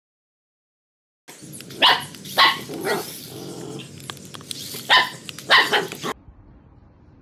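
A brief silence, then a golden retriever barks four times in two pairs, facing a small remote-control toy car.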